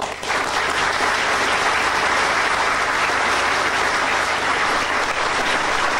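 An audience applauding, starting all at once and keeping up steadily.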